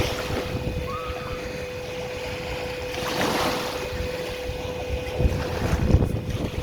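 Steady high hum from the motors of a handheld camera gimbal, with wind buffeting the microphone and a swell of noise about three seconds in.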